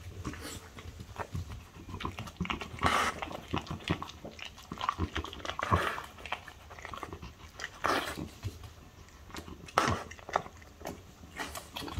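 French bulldog eating chicken tenderloin off a ceramic plate: close-up chewing and biting with many small clicks, and several louder bursts about three, six, eight and ten seconds in.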